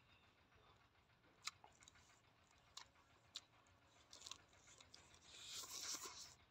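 Faint close-up eating sounds: a few sharp crunchy clicks as roasted rat meat is bitten and chewed, then a breathy hiss that swells near the end.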